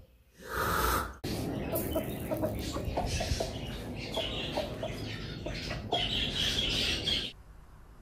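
A chicken clucking, a string of short repeated notes over background noise, which stops abruptly about seven seconds in. A short loud noise comes just before the clucking begins.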